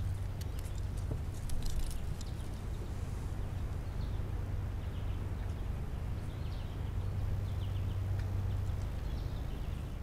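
Outdoor ambience: a steady low rumble with faint, scattered bird chirps and a few light clicks.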